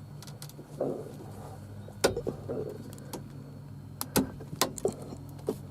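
A handful of sharp clicks and light knocks as the parts of a steering-column combination switch are snapped into place, over a steady low hum.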